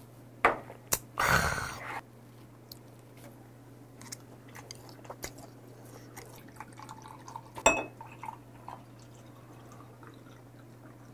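Drinking and eating sounds at a table. Just after a shot of liquor there is a knock, then a loud breathy burst lasting under a second. After that come soft chopstick clicks and chewing, and a sharp ringing clink about eight seconds in.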